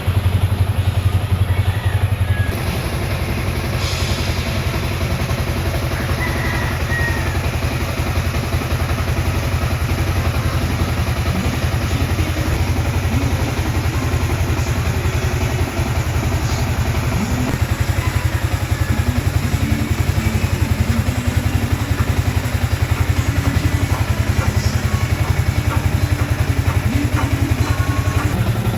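Yamaha Sniper 155 VVA's 155 cc liquid-cooled single-cylinder engine idling steadily, its exhaust giving a quick, even pulse.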